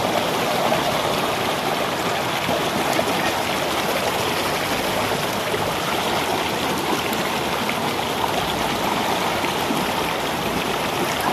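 Shallow rocky river flowing over stones: a steady rush of running water.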